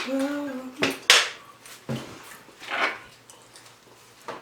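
Cutlery clinking and scraping against plates during a meal: a handful of separate sharp clinks, the loudest about a second in.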